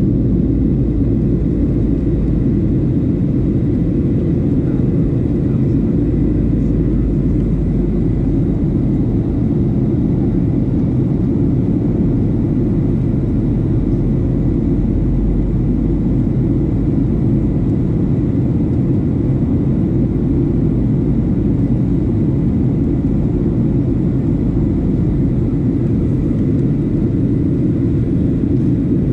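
Steady low cabin rumble of a Boeing 737-700 in flight, heard from inside the passenger cabin: engine and airflow noise from its CFM56 turbofans.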